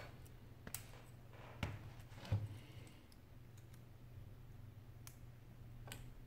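Faint, scattered small clicks and taps of tablet parts being handled while ribbon-cable connectors are fitted into an opened Samsung N8000 tablet, with one louder knock about two seconds in. A steady low hum runs underneath.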